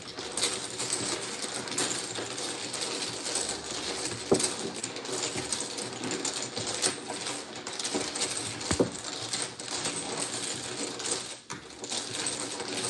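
Dominoes being shuffled on a table: hard tiles clicking and clattering continuously, with a couple of louder knocks.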